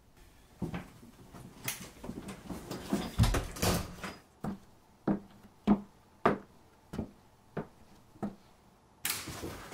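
A key rattling and clicking in a door lock and the door being opened, then about seven evenly spaced footsteps on a hard floor, one every half second or so. A short rush of noise comes near the end.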